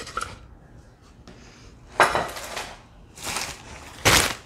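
Handling noise from unpacking decor: three short bursts of clatter and crinkling as small decorative items are knocked and moved and their wrapping rustles. The loudest burst comes near the end.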